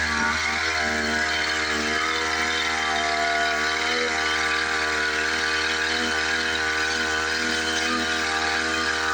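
Small engine of a motorized sprayer running steadily at a constant speed, its pitch wavering slightly.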